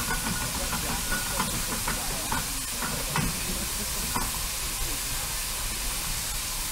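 Steam hissing steadily from the parked steam roller, with faint voices of people in the background.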